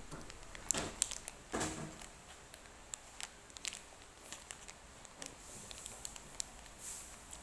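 Plastic wrapper of a packaged donut crinkling in short, irregular crackles as it is opened and handled.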